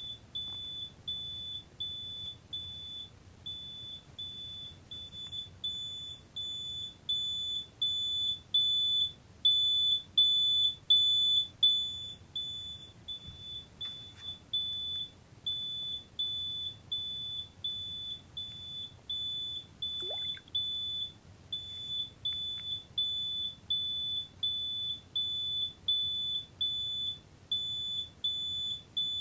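Mobile phone giving off a high-pitched electronic beep, about two short beeps a second at one steady pitch, repeating evenly and getting louder for a few seconds near the middle. The owner can find no explanation for it.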